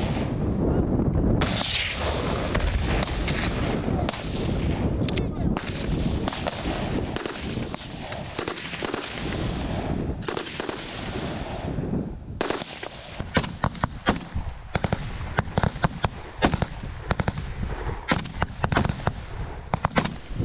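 Rifle gunfire from several shooters. Rapid, overlapping shots over a low rumble fill the first half. From about twelve seconds in they become distinct single shots, often several a second.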